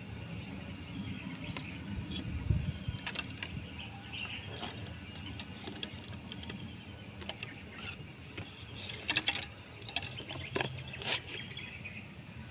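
Outdoor ambience: a steady low rumble and a thin steady high tone, with scattered clicks and rubbing from a handheld phone being moved. There is a louder thump about two and a half seconds in.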